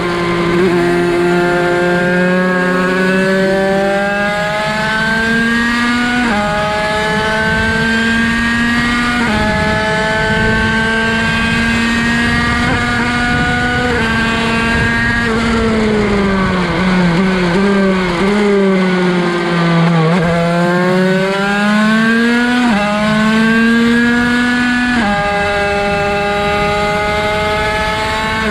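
A 50cc two-stroke race bike engine (Derbi 50 with a Bidalot cylinder) heard from on board at full throttle: its pitch climbs through each gear and drops sharply at three quickshifted upshifts. The revs then fall away over several seconds, and it pulls back up through two more upshifts near the end.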